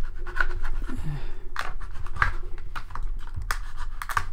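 Knife cutting along the edge of a plastic blister pack: irregular scratchy clicks and crackles of the blade working through the stiff plastic, over a steady low hum.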